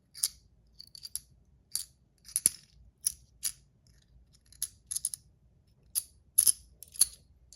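Metal fidget toy being handled: sharp metallic clicks and clinks, about a dozen at uneven intervals.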